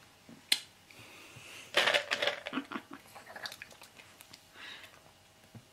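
Close handling noises: a sharp click, then a stretch of crackling rustles and small clicks, and a softer rustle near the end.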